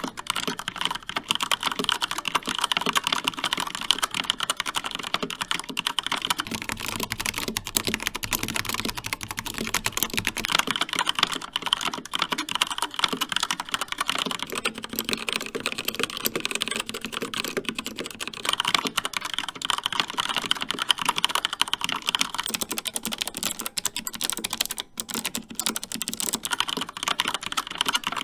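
Continuous fast typing on mechanical keyboards, one after another: a Rapture Alpha with Cherry Red linear switches, then a Corsair K70 Pro Mini Wireless with Cherry MX Red switches, then a CZC Dwarf with Kailh Red switches, and near the end an MSI Vigor GK50 with Kailh White switches. The key-stroke sound changes at each switch-over.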